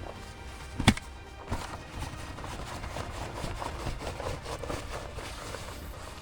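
Background music with a sharp knock about a second in, the loudest sound, and a smaller knock shortly after.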